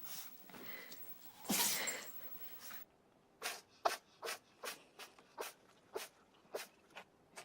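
An animal sneezing: one loud sneeze about a second and a half in, then a quick run of about nine short sneezes, roughly two a second.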